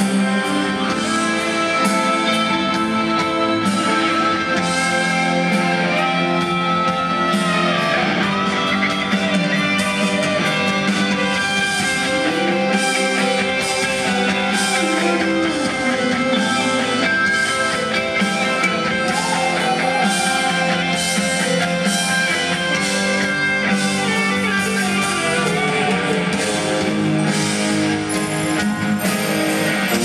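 Live rock band playing an instrumental passage without vocals, with guitar to the fore over bass and drums.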